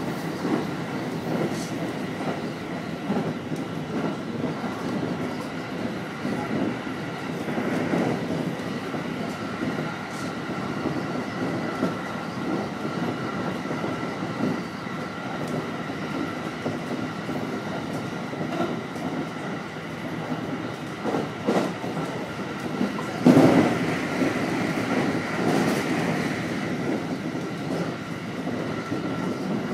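Electric commuter train running along the line, wheels clattering over rail joints under a steady whine. A louder burst of clatter comes about two-thirds of the way through.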